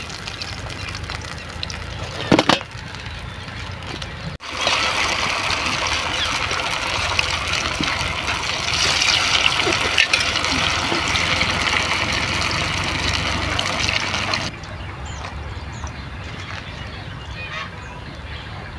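Oil sizzling as stuffed wheat-flour pastries deep-fry in an iron kadai over a wood fire. The steady hiss starts abruptly about four seconds in and stops abruptly about ten seconds later. Before it there is a quieter background with one sharp knock about two seconds in.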